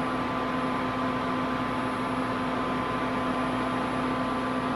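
Duxtop induction cooktop running at its top setting of 460°F: the steady whir of its cooling fan with an even, low hum under it.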